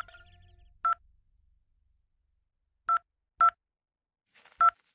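Mobile phone keypad beeping as keys are pressed: four short beeps of the same pitch, one about a second in, two close together about three seconds in, and one near the end.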